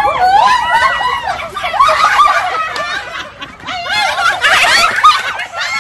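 A group of people laughing loudly together, several high voices overlapping.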